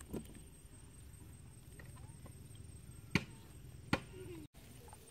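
Chickens clucking faintly in the background. Two sharp knocks come about a second apart past the middle.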